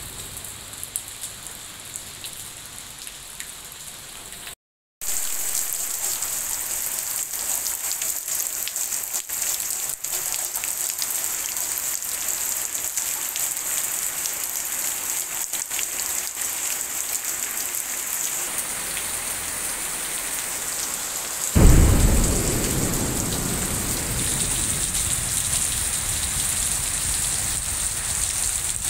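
Steady rain falling, with a brief dropout about five seconds in, after which the rain is louder. Well into the recording a sudden loud clap of thunder breaks in and rumbles away over several seconds.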